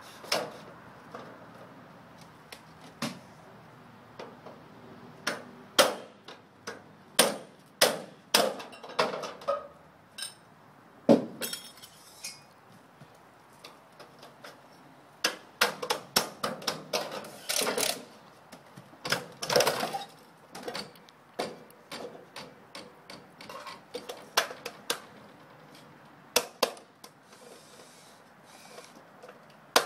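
Irregular metallic clanks, clinks and rattles as a metal gutter section and a seamless-gutter roll-forming machine are worked by hand, with runs of rapid clattering about a quarter of the way in and again around two-thirds through.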